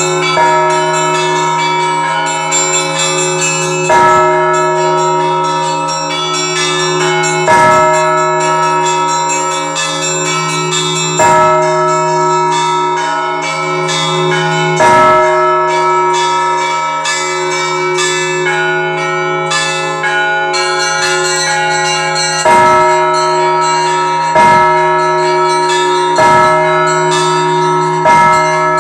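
Russian Orthodox church bells in a festive peal. The small bells ring on continuously over a sustained chord, and a heavy low bell is struck about every three to four seconds. That bell falls silent for several seconds in the middle, then returns with quicker strikes, about every two seconds, near the end.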